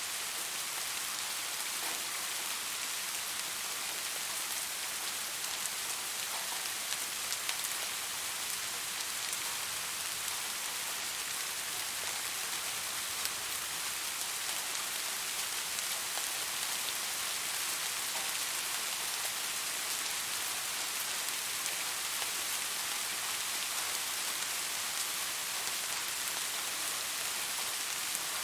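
Soft, steady rain falling, an even hiss with fine patter of drops and no let-up.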